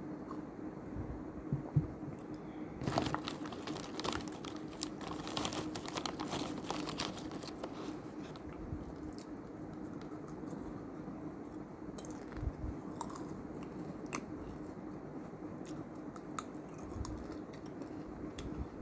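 Close-up crunching and chewing of crispy Mr Twist snacks with packet rustling, densest a few seconds in and then in scattered bites, over a steady low hum.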